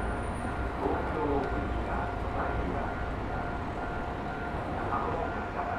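Train station ambience: a distant public-address announcement in Japanese over a low rumble, with a steady high tone.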